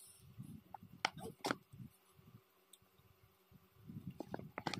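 Small clicks and rustling of a child's hands picking at fried chicken in a bowl: two sharp clicks about a second in, a quiet stretch, then a quick run of clicks and rustles near the end.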